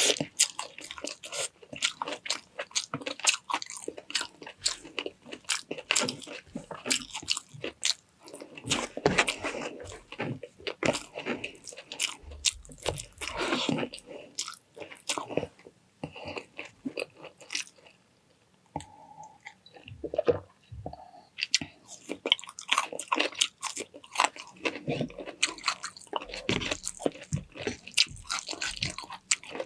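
Close-up eating sounds: a person chewing and biting food with steady crunches and wet mouth clicks, pausing briefly about two-thirds of the way through.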